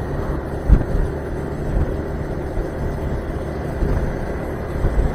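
Steady engine and road noise of a Yamaha scooter being ridden at moderate speed among city traffic, with a short thump under a second in.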